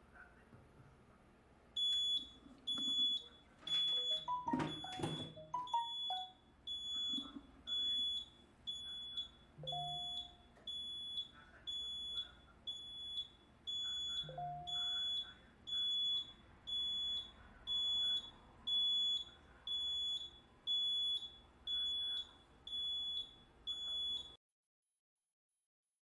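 Notifier fire alarm panel's piezo sounder beeping, one high, shrill beep about every second in a steady pulse, with the alarm still active on the panel. There is a cluster of clicks and knocks about four to six seconds in, and the beeping cuts off suddenly near the end.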